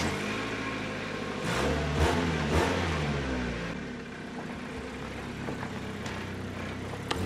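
Mazda hatchback's petrol engine running and revving as the car pulls away, the revs rising and falling about two seconds in, with its exhaust now free-flowing after the broken, clogging catalytic converter core was ripped out.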